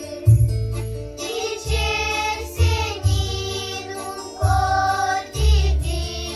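Children's choir singing a Romanian colind (Christmas carol) over a backing track, with heavy bass notes about once a second.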